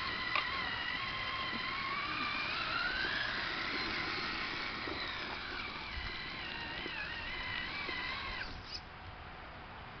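Electric drive motor of a Traxxas Summit RC truck whining, its pitch gliding up and down with the throttle, then dropping away near the end.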